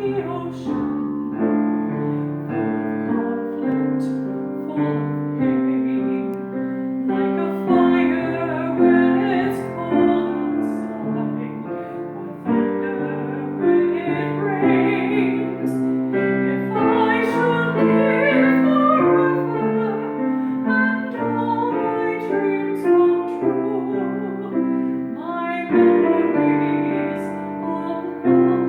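Music: a piano playing sustained chords, with a woman singing over it in a classical style with vibrato, her voice coming in and out.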